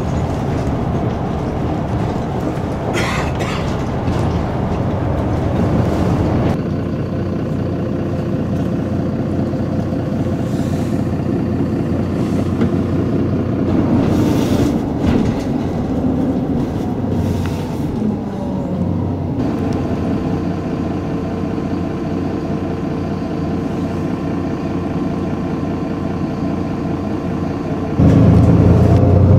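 Engine and road noise heard inside a moving bus, changing abruptly twice and getting suddenly louder near the end.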